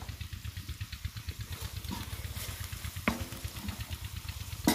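An engine running steadily with a low, even throb. About three seconds in, a single metal clank rings briefly off the iron tawa.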